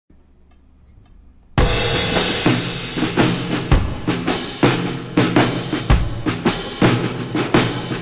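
Background music with a steady drum-kit beat, starting suddenly about one and a half seconds in after a near-quiet opening.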